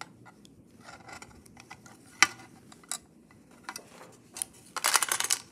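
Plastic fraction tiles sliding and clicking against each other and the sides of a clear plastic tray: scattered light clicks, one sharp click about two seconds in, and a quick rattle of clicks near the end.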